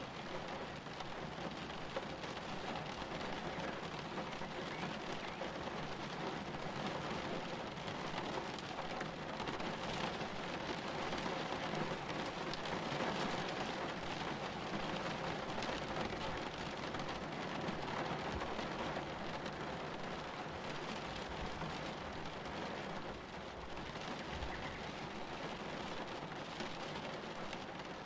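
Steady rain from a thunderstorm, an even wash of drops that swells a little in the middle. Faint low rumbles of thunder come twice in the later part.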